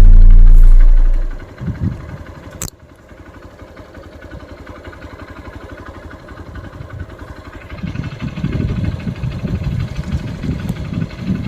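A very loud, deep music note cuts off about a second in. Then a vehicle engine runs, growing louder with a low pulsing from about eight seconds in.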